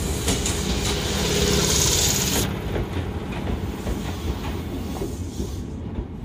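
Tokyu 8610-8510 electric commuter train running past at close range, its wheels clicking over the rail joints under a loud hiss of wheels and running gear. The hiss drops off sharply about two and a half seconds in as the train draws away, leaving fainter wheel clicks.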